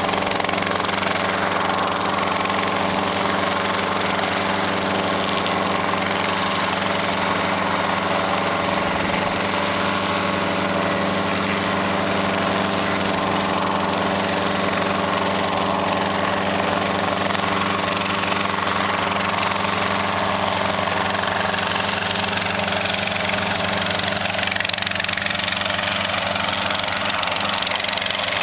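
Schweizer 300 helicopter running steadily as it lifts off the pad into a low hover: a four-cylinder Lycoming piston engine and main rotor at a constant pitch.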